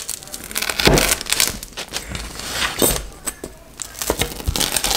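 The crisp baked crust of a pizza crunching and crackling as a large straight cutting blade is pressed down through it onto a metal pizza pan, in several separate cuts about a second or two apart.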